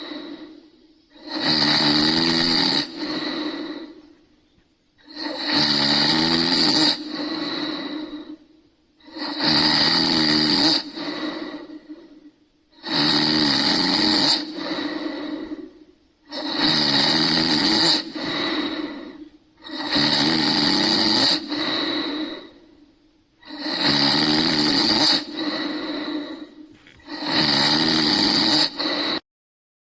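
Snoring: eight regular snores about three and a half seconds apart, each a loud stretch followed by a shorter, softer one. It cuts off abruptly just before the end.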